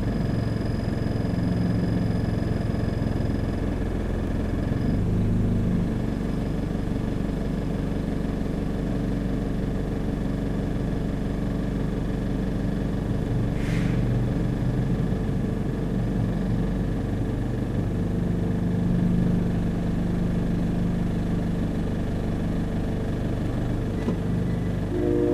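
Car engine idling with a steady low hum, heard from inside the car, rising slightly around two-thirds of the way through. A train horn starts to sound right at the end.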